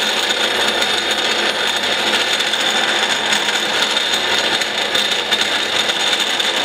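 1923 Mayer-Schmidt belt-driven pedestal grinder grinding metal held against its wheel: a steady, loud grinding noise with a high whine running through it.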